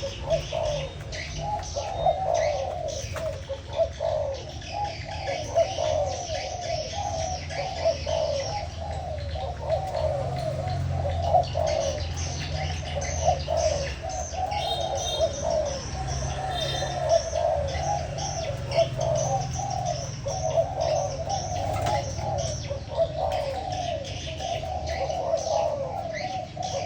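Spotted doves (cu gáy) cooing against each other in a cooing duel, coo phrases following one another almost without a break.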